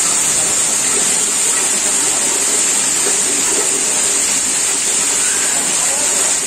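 Torrential rain pouring down in a steady, unbroken hiss.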